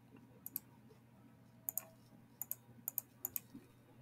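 Faint clicking at a computer: about six short, sharp clicks spaced irregularly, several coming in quick pairs.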